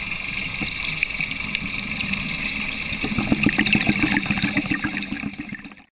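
Underwater recording: a steady hiss with faint scattered crackling, then a gurgling rush of scuba diver's exhaled bubbles from about three seconds in. The sound cuts off abruptly near the end.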